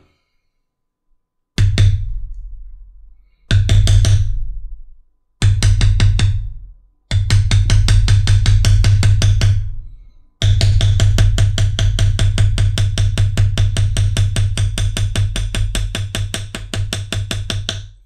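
A rawhide mallet taps rapidly on a steel leather-tooling stamp held on damp belt leather over a granite slab, about six light blows a second. The blows come in three short runs and then two long runs, each trailing off in loudness.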